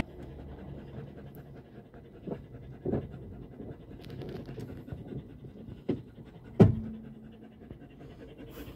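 A greyhound panting, with a few knocks and clunks, the loudest about two-thirds of the way through.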